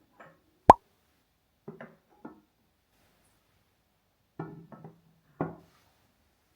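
Hard objects being handled and set down: scattered light knocks, with one sharp, loud clink that rings briefly less than a second in, and a few clusters of knocks later on.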